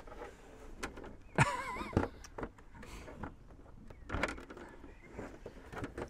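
Plastic inner door card of a motorhome habitation door being handled and fitted against the door: scattered knocks and rubbing, the sharpest about a second and a half and two seconds in, with another about four seconds in.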